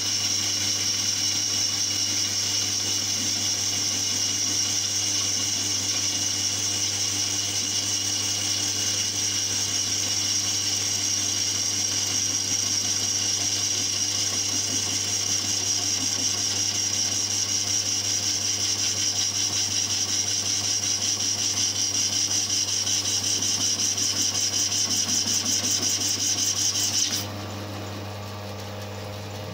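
Metal lathe turning a cast billet, a carbide tool taking a roughing cut with the chips breaking cleanly: a steady high cutting noise over the lathe's hum. Near the end the cutting noise stops abruptly and only the quieter running of the lathe remains.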